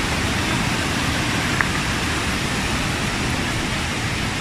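Rushing water of a rocky mountain stream spilling over a small cascade between boulders, a steady, even rush, with a single light click about a second and a half in.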